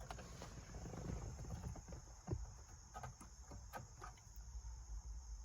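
Scattered light clicks and taps of a small metal tool prying at the plastic clips of a car head unit's display, with steady high cricket chirring behind.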